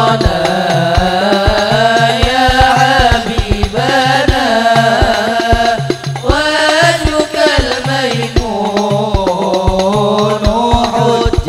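A qasidah sung by male voices, accompanied by hadrah hand drums (rebana) beating a steady rhythm throughout.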